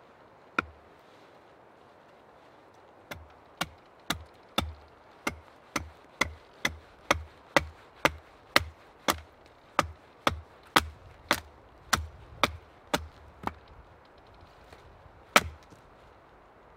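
Hatchet chopping into a split wooden billet on a stump. One chop comes first, then a steady run of about twenty chops at roughly two a second, then a pause and one last hard chop near the end.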